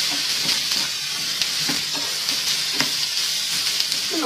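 Prawns, onion and capsicum sizzling in oil in a frying pan on high flame, with a steady hiss, while a wooden spatula stirs them, scraping and tapping the pan in scattered clicks.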